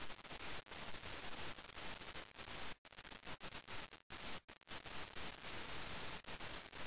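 Steady hiss of static or recording noise, cutting out briefly about three and four seconds in.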